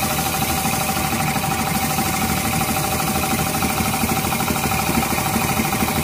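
Homemade belt-driven air compressor running steadily: an electric motor driving a reciprocating compressor pump, with a converted LPG gas cylinder as its air tank. It gives a constant tone over a fast, even mechanical rattle.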